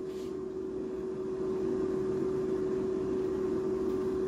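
Countertop air fryer's fan running: a steady hum with one constant mid-pitched tone over a soft hiss, getting slightly louder about a second and a half in.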